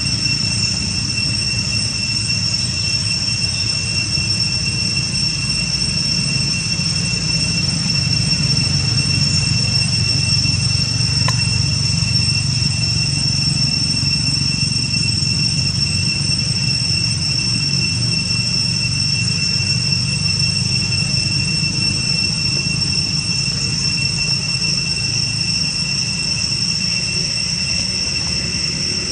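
Steady, high-pitched drone of calling insects, two unchanging tones that hold without a break, over a constant low rumble.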